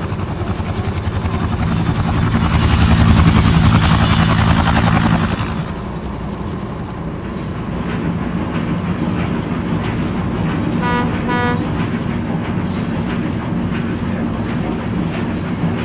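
Helicopter rotor chop, loudest in the first few seconds and then fading away. A steady low engine drone follows, with two short toots of a boat horn about eleven seconds in.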